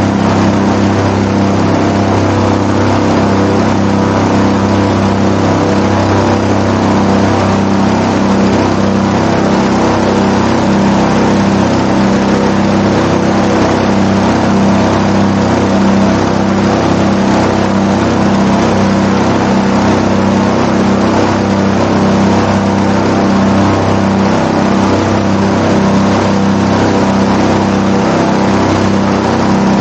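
Airboat-320 SE airboat's engine and air propeller running loud at a steady speed, with an even drone and no change in pitch.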